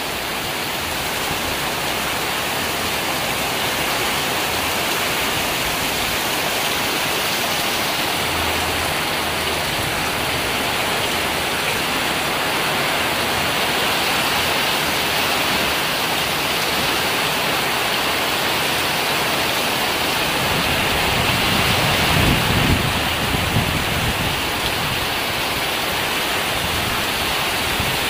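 Heavy tropical downpour, a steady dense hiss of rain falling on the road, the ground and the tree leaves. Low rumbling swells, likely strong wind gusts, come and go about three-quarters of the way through.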